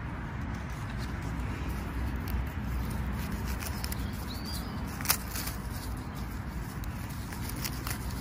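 Wild garlic leaves and stems rustling as a gloved hand gathers them, over a steady low outdoor rumble, with one sharp click about five seconds in.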